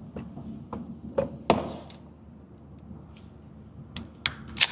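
Sharp metallic clicks and knocks from a pistol being handled, a handful in all: the loudest about a second and a half in, then three in quick succession near the end.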